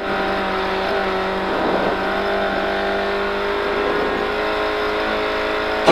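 Small 1300 cc-class rally car engine heard from inside the cabin, pulling at steady revs with an even, unchanging note over a hiss of tyre and road noise.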